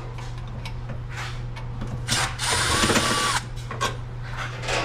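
A cordless drill-driver runs for about a second, a little over two seconds in, its motor pitch rising and falling as it works fasteners off the back of a Samsung dryer. A few light clicks of metal come before and after, over a low steady hum.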